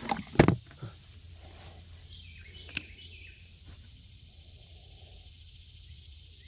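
Outdoor background: a sharp knock about half a second in and a smaller click near three seconds, then a steady faint hiss with a few short bird chirps.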